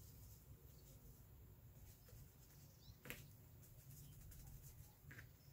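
Near silence: quiet room tone with a low hum, broken by one faint tap about three seconds in.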